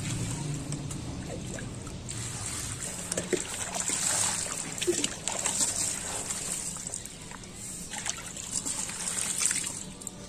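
Water poured from a steel mug over chopped leafy greens in a plastic colander, trickling and splashing through the holes as a hand works the wet leaves to wash them.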